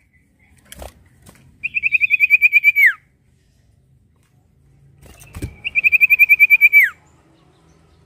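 Caged sirtu (common iora) singing two phrases a few seconds apart, each a fast, even trill of about a dozen notes that ends in a sharp downward slur. A short knock comes shortly before each phrase.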